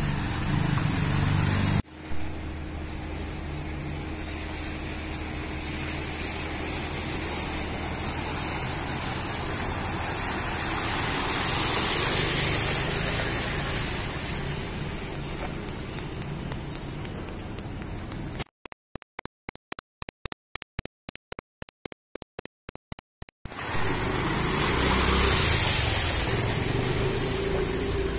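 Steady rushing outdoor noise with no distinct events, heavier and lower in the first couple of seconds. For about five seconds past the middle it cuts in and out rapidly, about four times a second, then returns steady.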